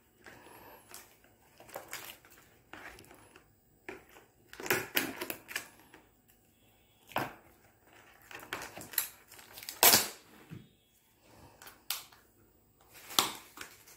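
Irregular clicks and crackles of a thin plastic takeaway cup and a cardboard box insert being handled, as the cup is worked out of its holder and opened. The loudest snap comes a little before ten seconds in.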